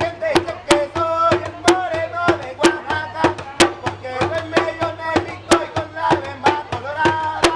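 Live street music: repeated sharp drum strikes under a pitched melody, playing without a break.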